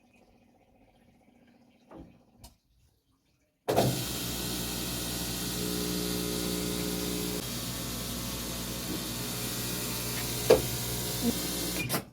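Washing machine running with a strange noise: a steady hum over a hiss that starts suddenly a few seconds in, with a couple of sharp knocks near the end, before it stops abruptly. The noise comes from a part overheated because of a fault at the drum's fork (horquilla), which keeps the machine from spinning normally.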